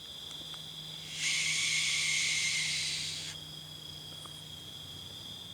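Night bush sounds: insects trilling steadily on two high notes, and a loud harsh hissing screech from an owl that starts about a second in and lasts about two seconds.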